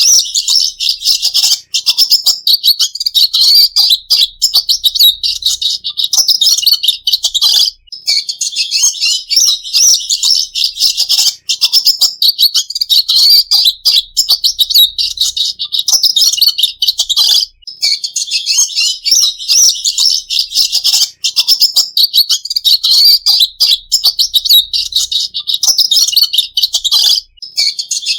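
Red siskin singing: a rapid, continuous, high-pitched twittering song broken by short pauses every few seconds.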